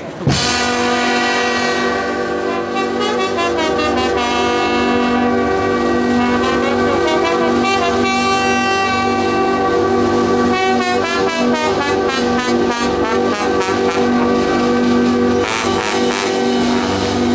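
Brass band playing, with long held notes and chords that shift every few seconds.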